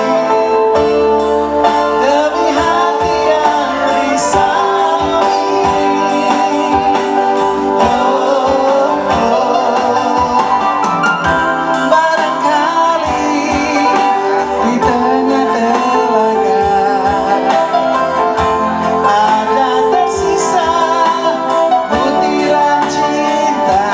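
A woman singing with guitar accompaniment, the melody wavering over plucked and strummed chords.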